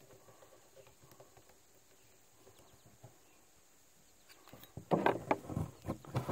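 Percussion revolver being handled during loading: nearly silent at first, then from about four and a half seconds in a quick run of sharp metallic clicks and knocks as the cylinder is turned to the next chamber.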